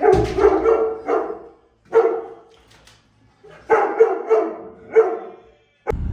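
A dog barking repeatedly in short bursts, a quick run of barks at the start, then single barks and another cluster with short gaps between. A sharp click near the end, then a steady low rumble begins.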